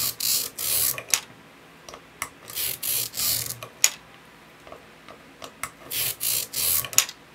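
Magnet spheres dragged by a plastic stylus across cleaning tape over a steel plate: a lumpy rubbing in several short passes, as each magnet's poles pull down against the plate and supply their own cleaning pressure. A few sharp clicks fall between the passes.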